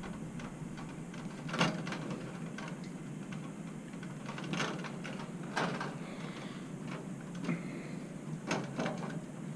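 Scattered sharp clicks and snaps, about six in all, from hand work on ballast wiring with wire strippers, over a steady low background hum.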